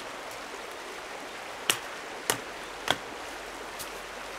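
An axe striking a wooden stake three times, about half a second apart, driving it into the ground. A steady rush of running water goes on underneath.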